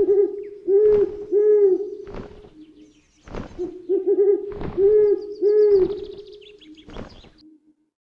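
An owl hooting in two phrases, each a quick stuttered hoot followed by two longer, low hoots. Short thumps fall between the calls.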